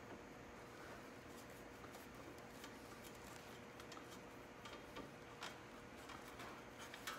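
Faint, scattered light metallic clicks and taps of a bolt and washer being started by hand into the frame at a motorcycle crash bar's lower mount, over a faint steady hum.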